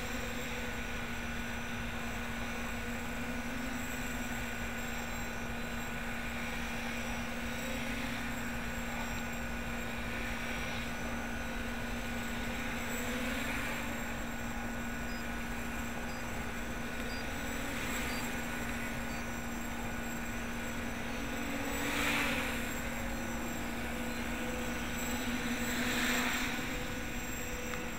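A 550-size quadcopter with 900 kV motors and E-props flying, its motors and propellers buzzing at a steady pitch, briefly louder twice near the end.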